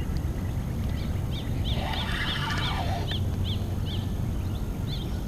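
A bird calling over and over in short, high chirps, about two to three a second, with a rougher, fuller call about two seconds in, over a steady low rumble.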